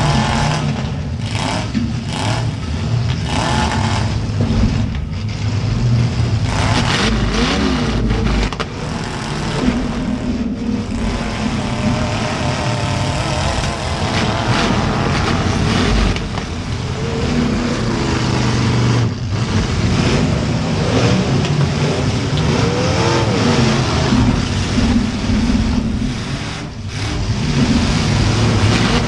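Rear-mounted V8 engine of a demolition derby car revving hard and unevenly, its pitch rising and falling as it is pushed through the derby.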